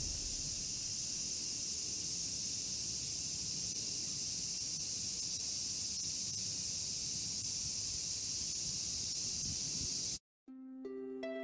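Steady high-pitched outdoor insect chorus over a low rumble. It cuts off suddenly near the end, and soft music with piano-like notes begins.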